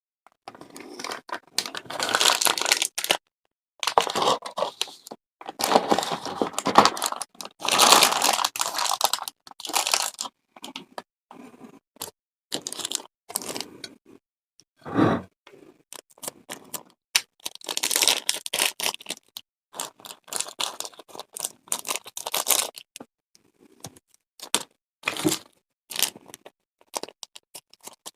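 Plastic packaging crinkling and tearing in irregular bursts, with many short clicks and knocks in between.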